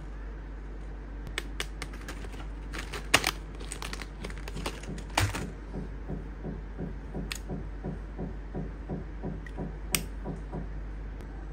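Plastic pens clicking and knocking as they are handled, with a sharp click about three seconds in. From about six seconds in, a pen scribbles back and forth at about three to four strokes a second.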